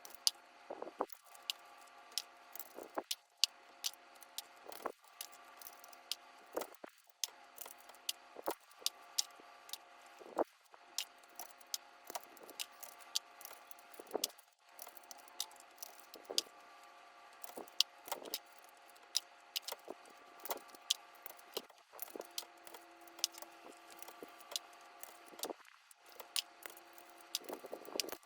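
Plastic keycaps being pushed onto the switches of a mechanical keyboard: a steady run of sharp, irregular clicks and taps, often several a second.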